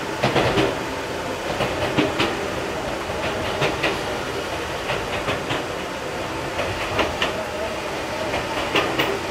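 Enoden 500-series electric train running along the track, a steady rumble with wheels clicking over rail joints in pairs every second or two.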